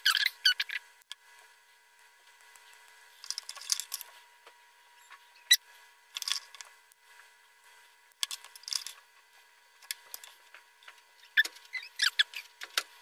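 Small clicks, taps and scratches of wires, tweezers and a soldering iron being handled on a silicone work mat during bench soldering. They come in short clusters every couple of seconds over a faint steady thin whine.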